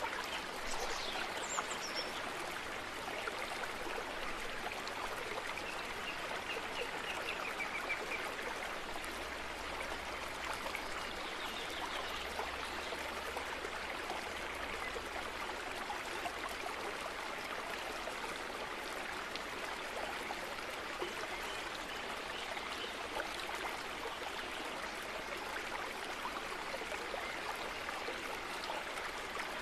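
Steady rushing background noise, unchanging throughout.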